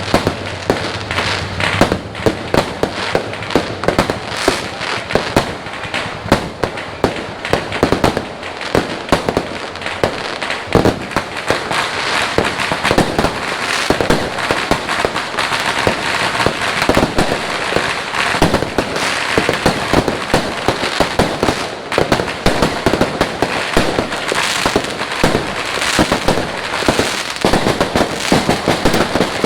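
Fireworks and firecrackers going off in a dense, continuous barrage of sharp bangs and crackling, many per second.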